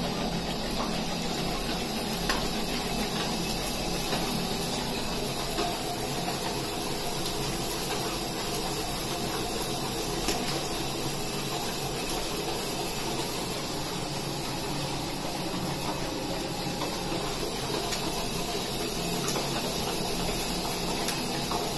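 Hot oil sizzling and bubbling in a large iron kadhai as small pani puri dough discs deep-fry and puff up, a steady hiss. A few light clicks.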